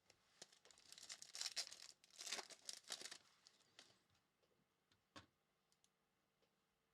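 Crinkly tearing of a trading card pack's wrapper being ripped open, lasting about two seconds, followed by a single click a few seconds later.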